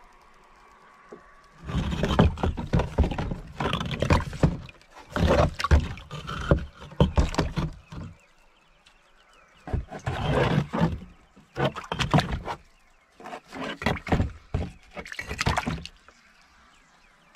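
Water sloshing and splashing in a plastic tub as bricks soaking in it are moved about by hand, in several bouts of a few seconds each with short pauses between.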